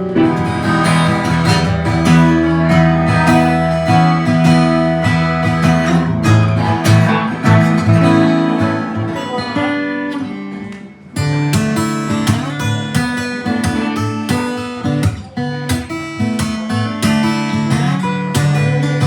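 Taylor GS Mini-e Koa Plus, a small-bodied koa acoustic guitar, being played with chords and picked notes. The playing briefly drops away about eleven seconds in, then carries on.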